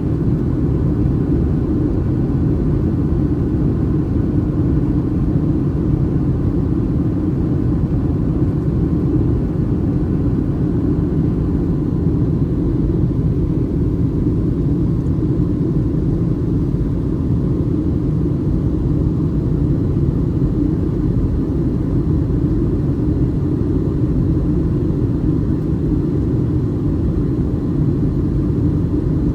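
Steady in-flight cabin noise inside a Boeing 737-800, heard from a seat over the wing: the constant low rumble of airflow and the CFM56-7B engines, unchanging throughout.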